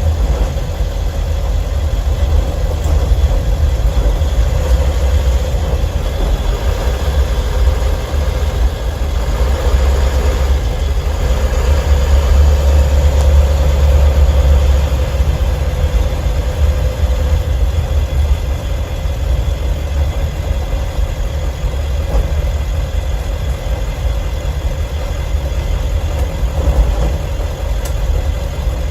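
Ford 7.3 Powerstroke V8 turbo-diesel running while the van is driven, heard from inside the cab beside the engine cover: a steady low diesel drone that swells louder for a few seconds near the middle. The owner is listening for a loose metallic noise that comes and goes and fades away under acceleration.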